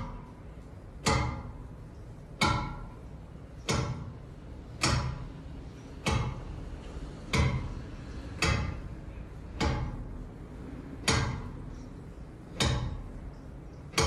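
Wall convector heater knocking at a steady beat, about one sharp knock every second and a bit, each with a short ringing tail.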